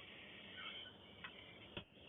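Near silence: faint room tone with two faint ticks, one a little past a second in and one near the end.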